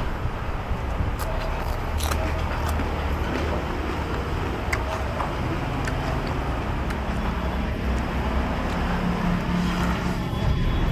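Steady street traffic noise with the low rumble of passing vehicle engines, and a few light clicks.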